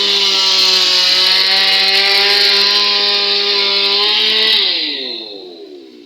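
Chainsaw cutting through the trunk of a fallen tree at steady high revs, then coming off the cut about four and a half seconds in, its engine falling toward idle.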